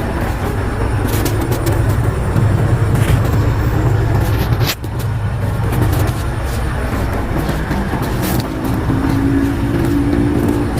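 An engine running steadily with a low rumble, with a few sharp clicks or knocks over it.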